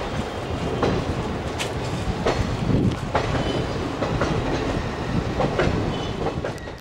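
Indian Railways passenger coach running on the track: a steady rumble with irregular clicks and knocks of the wheels over rail joints and points, and a faint high squeal now and then.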